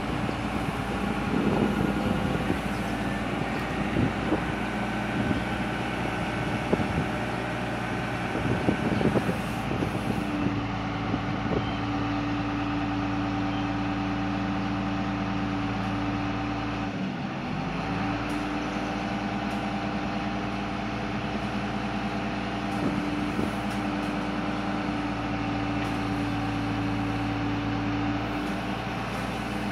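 Truck-mounted crane working, with the truck engine running and driving the crane's hydraulics as the boom raises and extends. Knocks and clatter come over the drone in the first third; after that a steady pitched hum holds, dipping briefly around the middle.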